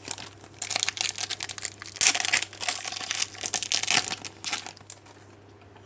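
Foil wrapper of a Topps Premier Gold trading card pack crinkling as it is torn open and handled. The crackling runs from about half a second in, is loudest about two seconds in, and fades out near the end.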